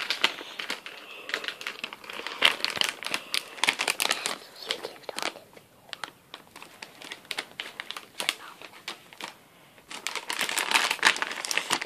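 Clear plastic packaging crinkling and crackling as it is snipped with scissors and handled. It goes quieter for a few seconds in the second half, then there is a louder burst of crinkling near the end.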